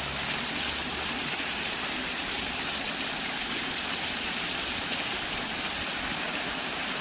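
Waterfall splashing steadily into a pool, an even rush of falling water with a bright hiss.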